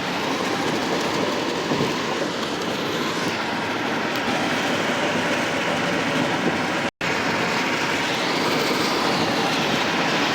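Steady road and tyre noise of a vehicle driving on the freeway, broken by a brief audio dropout about seven seconds in.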